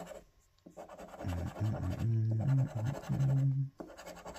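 A coin scraping the scratch-off coating of a paper scratchcard in quick rubbing strokes, with a brief pause near the start. From about a second in until near the end, a short low tune of held notes sounds over it, louder than the scratching.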